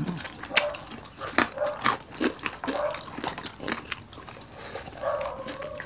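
Close-miked eating: chewing with irregular crunches and wet smacking sounds.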